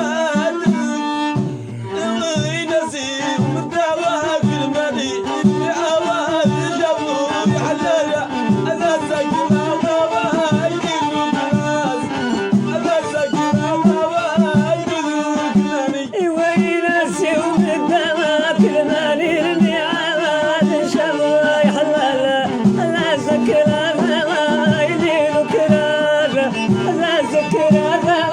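Traditional folk music played with no added effects: a wavering melodic line over a steady hand-drum beat, with singing.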